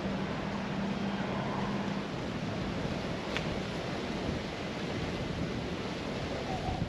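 Wind rumbling on the microphone, an even rushing noise, with a steady low hum that stops about two seconds in.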